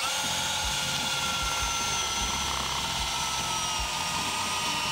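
Cordless drill running steadily as it bores a pilot hole through asphalt shingles into the wooden rafter below. Its motor whine sags slightly under the load.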